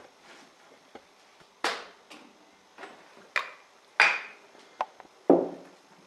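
Handling sounds of a small paper carton model on a worktable: a string of irregular taps, knocks and brushing rustles as it is picked up, squeezed between the fingers and set back down on a book, the loudest knock about four seconds in and another near the end.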